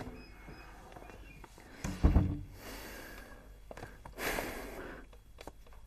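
A heavy front door thuds shut about two seconds in, followed by quiet footsteps on a hard floor and a short breathy exhale a little after four seconds.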